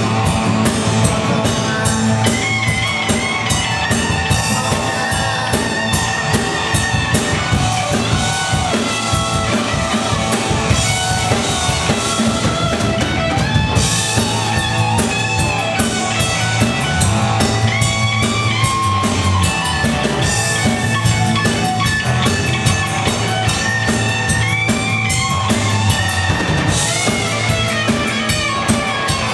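Live rock band playing: electric guitars, bass guitar and drum kit, loud and steady throughout, with guitar notes bending up in pitch now and then.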